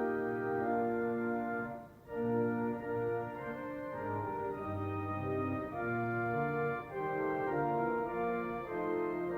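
Church organ playing a hymn tune in sustained, full chords, with a short break between phrases about two seconds in.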